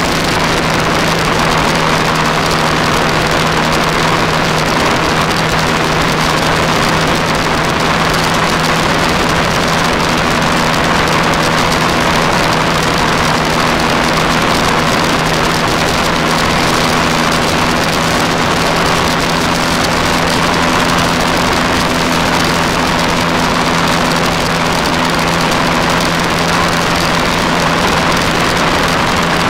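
Motorcycle cruising at steady highway speed: a constant rush of wind over the camera with an unchanging engine drone beneath it.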